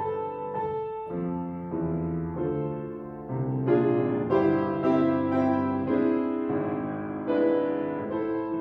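Baldwin grand piano played solo: a slow piece of held chords that grows louder about three seconds in.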